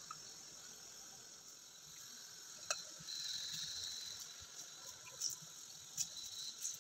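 Faint trickle and drip of water being wrung by hand out of grated raw potato through a steel mesh strainer into a glass bowl. There is a sharp click nearly three seconds in and a few short wet sounds near the end.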